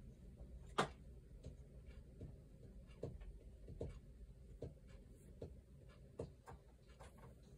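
Felt-tip marker writing cursive on paper: faint, short scratching strokes about once a second, with one sharper, louder stroke about a second in.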